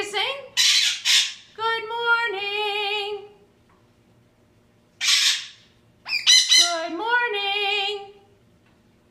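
Blue-and-gold macaw vocalizing: harsh squawks, then a long wavering call. After a pause there is another harsh squawk, followed by a second long wavering call near the end.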